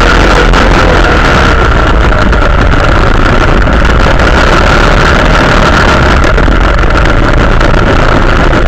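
Quad bike (ATV) engine running steadily at speed while climbing a sand dune, with wind rushing over the mounted camera's microphone. It is very loud and holds an even pitch throughout.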